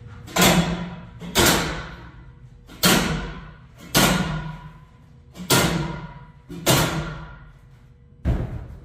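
Steel salmon ladder bar clanging into the ladder's rung brackets as it is jumped from rung to rung, about seven loud metallic strikes a second or so apart, each ringing out for about a second.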